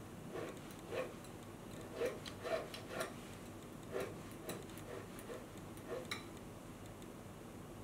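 Short, irregular scraping clicks of a slender steel hand tool worked against a jade pendant's metal setting held on a wooden bench pin, about a dozen strokes roughly two a second, stopping a little past six seconds in.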